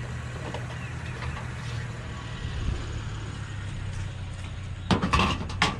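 Truck engine running with a steady low hum, then a quick cluster of loud, short sounds near the end.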